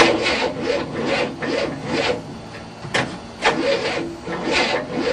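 A 1967 Cadillac's V8 being cranked by its starter with a slow, uneven rasping rhythm of about three strokes a second, not firing: a no-start, which the owners put down to flooding.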